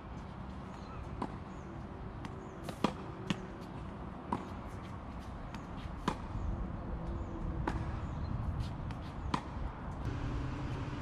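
Tennis rally on a hard court: sharp pops of racket strings hitting the ball, and the ball bouncing, about every one and a half seconds, over steady outdoor background noise.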